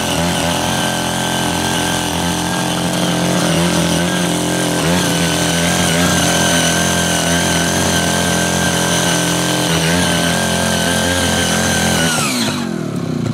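Ching Yee CY80 power tiller's 5 hp engine running steadily at high speed under load as its six rotary tilling blades work hard, weedy soil. The engine note dips briefly a couple of times and falls in pitch near the end.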